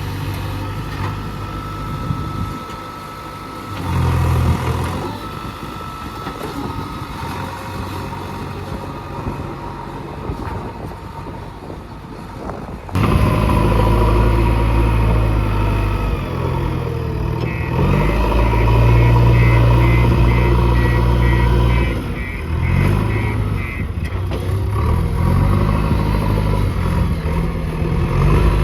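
JCB 3DX backhoe loader's diesel engine running and revving under work, getting suddenly louder about halfway through. A rapidly repeating beeping alarm sounds for a few seconds in the second half.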